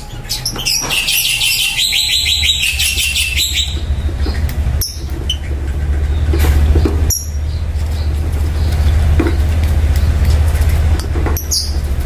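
Lovebirds chattering: a fast run of rapid buzzy chirps lasting about three seconds near the start, then a few short high chirps later on. A steady low rumble runs underneath.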